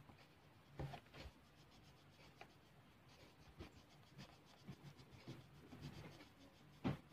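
Faint scratching of an orange colored pencil shading in on paper, with a couple of soft bumps, the loudest near the end.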